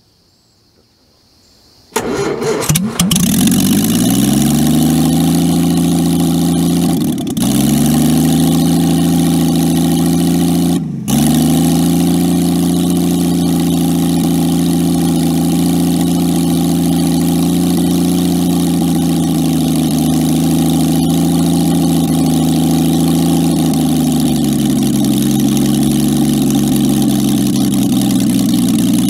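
A Jaguar XK straight-six engine cranks and catches about two seconds in. Its revs climb and settle into a steady fast idle. The revs dip briefly twice, then drop to a lower idle about three-quarters of the way through.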